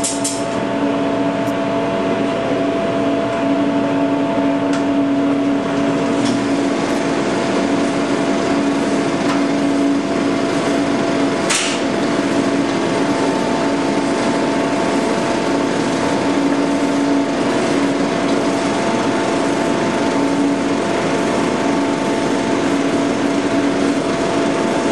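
35mm film projector starting up and running steadily, a mechanical hum with several steady tones over a whirr. One sharp click about halfway through.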